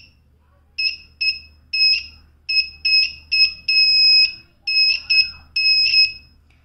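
A small breadboard buzzer driven by an Arduino sounds a high-pitched tone in a string of about a dozen short, uneven beeps, one held for about half a second. It switches on and off as the water sensor's traces touch the water.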